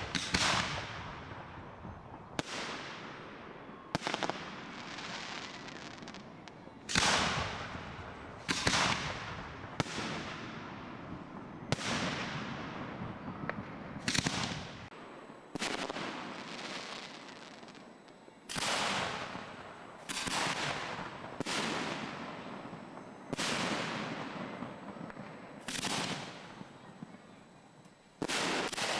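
Aerial fireworks going off in a steady series of about fifteen loud bangs, one every one to two seconds, each dying away in a long trailing echo.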